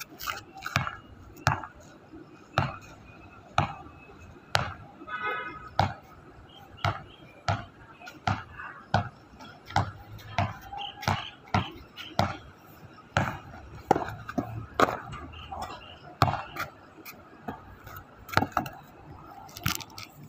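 Basketball dribbled on pavement, bouncing steadily about twice a second.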